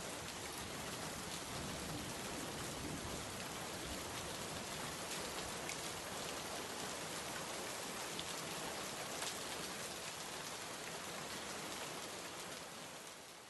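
Rain falling steadily in a dense, even hiss, with individual drops ticking through it. It fades out near the end.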